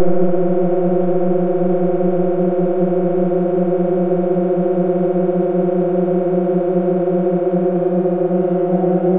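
Dense sustained synthesizer drone from dozens of software drone oscillators in DIN Is Noise, a steady low chord tuned microtonally around F to G, with a fast shimmering waver in the tones. The upper tones brighten slightly near the end as the drones' amplitude-modulation depth is raised.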